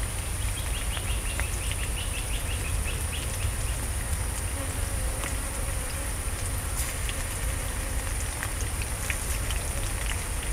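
Steady high-pitched insect drone over a low rumble. About a second in comes a short run of chirps, and small clicks are scattered through.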